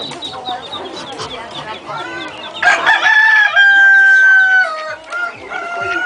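A rooster crows loudly about halfway through, one long drawn-out crow with a held note, after hens clucking. A second crow begins near the end.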